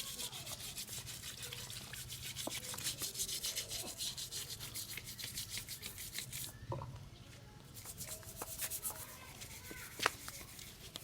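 Stiff brush scrubbing motorcycle engine parts in quick back-and-forth strokes. The strokes stop about six and a half seconds in, resume briefly, and a single click comes near the end.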